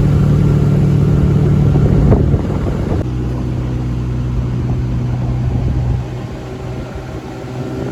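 A boat's outboard motor running steadily, then easing off in steps: the engine note drops a little past two seconds in and again about six seconds in.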